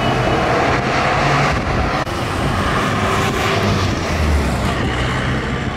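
City street traffic: cars driving past, with a pickup truck passing close by about four seconds in, its low rumble swelling as it goes by.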